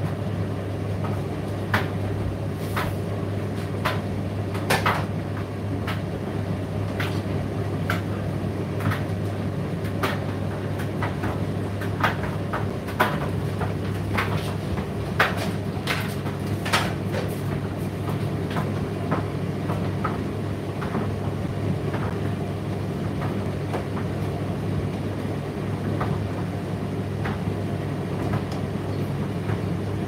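Indesit IDC8T3 condenser tumble dryer running, a steady low motor-and-drum hum with irregular light clicks and knocks from the load turning in the drum, more frequent in the first half.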